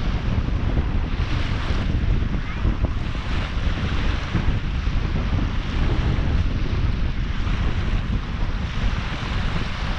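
Wind buffeting the microphone with a heavy low rumble, over small waves breaking and washing up a concrete shore in repeated surges of hiss.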